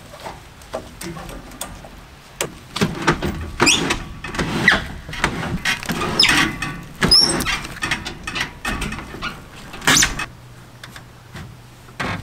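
Irregular knocks, clanks and scrapes of hands-on work at a steel utility trailer: tie-down straps being handled and boots climbing onto the trailer's metal deck against a heavy wooden blind.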